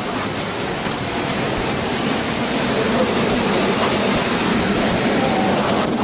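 Steady rushing of a partly frozen waterfall, its water still running beneath the ice, growing a little louder about two seconds in.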